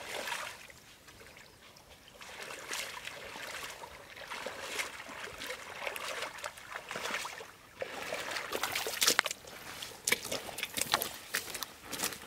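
Shallow pond water sloshing, trickling and splashing in irregular bursts, with sharper, louder splashes from about eight seconds in.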